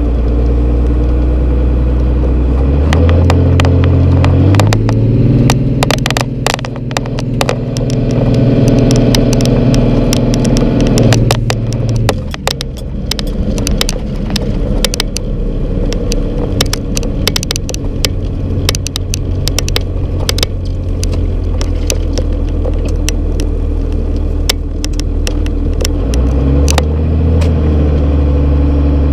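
A 1997 Dodge Ram's 5.9 Cummins diesel heard from inside the cab while driving. The engine's pitch climbs in two steps a few seconds in, drops back about twelve seconds in, and climbs again near the end. Scattered sharp clicks and rattles come through the middle.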